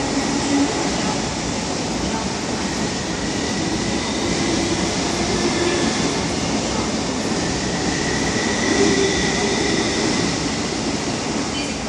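Steady train noise inside an MTR East Rail line SP1900 electric train standing at a platform with its doors open, with a few faint held whining tones.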